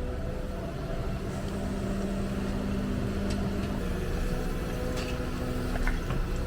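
Hyundai excavator's diesel engine and hydraulics running steadily, their hum stepping in pitch a couple of times as the machine works. A few sharp clicks come in the second half.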